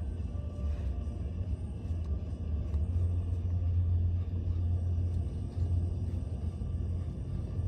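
Car engine being cranked on the starter without catching, a steady low rumble in a hard-start attempt.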